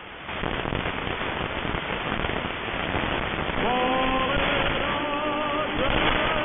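Crackling longwave AM static from a web SDR receiver. About three and a half seconds in, the Polish Radio 1 (Jedynka) broadcast on 225 kHz comes up through the noise as wavering pitched notes of music, half-buried in the static.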